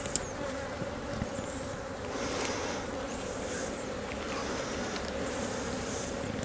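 Honeybees buzzing steadily from an open hive, a continuous hum, with a plastic bag rustling a few times as it is spread over the frames.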